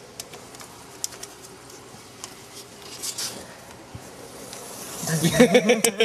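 Faint handling clicks and a brief rustle, then a man laughing in quick pulses near the end.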